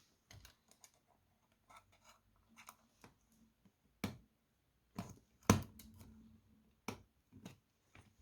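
Scattered light clicks and taps of small metal parts being handled while nuts are taken off a mechanical alarm clock's movement, the sharpest about halfway through.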